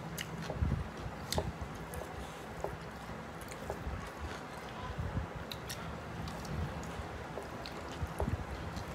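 Close-up chewing and wet mouth smacks of someone eating mutton biryani, with irregular small clicks and squishes every fraction of a second.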